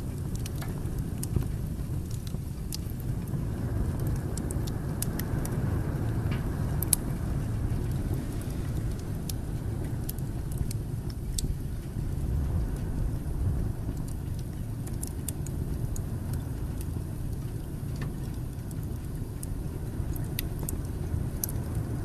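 Wood fire burning in a fireplace: a steady low rumble of the flames with scattered sharp crackles and pops from the burning logs.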